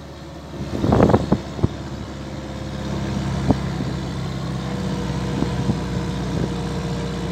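Electric tourist car driving up a hill road: a steady motor hum with a faint whine and road noise, with a short louder burst of noise about a second in and a few small clicks.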